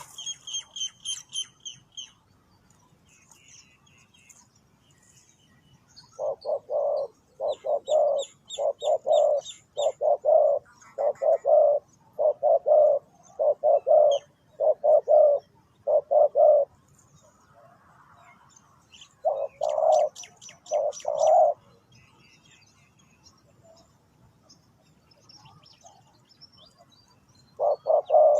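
Spotted dove cooing: a long series of low, paired coo notes, then a pause and two more coos, with a fresh series starting near the end. A small bird's rapid high chirping trills come in briefly near the start, in the middle and alongside the later coos.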